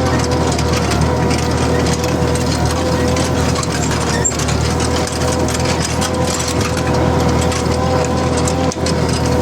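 New Holland TD4.100F tractor's diesel engine running at steady revs, working a cultivator through the soil, with a steady whine over the engine note.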